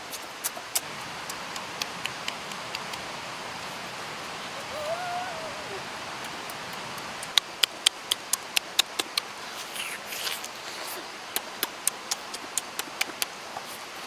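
Close-up eating sounds of someone biting and chewing grilled pork ribs: wet lip smacks and chewing clicks that come in quick runs in the second half, over a steady background hiss.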